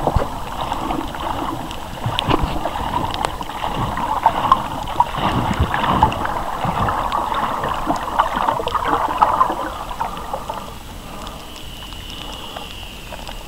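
Underwater water noise picked up by a submerged camera: a rough gurgling wash with many small scattered clicks, louder for the first ten seconds or so, then quieter.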